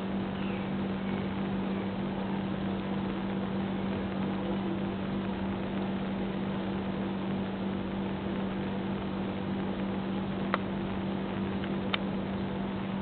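A steady machine hum with one strong low tone and a faint hiss, broken only by two short clicks near the end.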